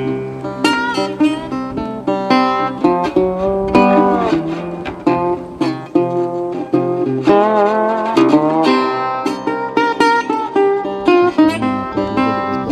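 Background music: a plucked acoustic guitar tune with quick picked notes.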